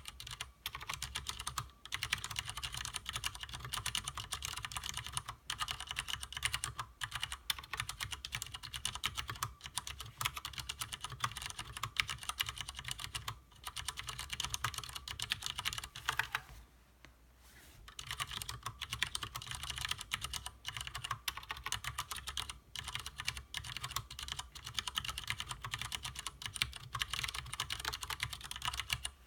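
Continuous fast typing on a Leopold FC750R mechanical keyboard with stock Cherry MX Clear switches (tactile, non-clicky): a dense stream of keystroke clacks, broken by a pause of about a second and a half just past the middle.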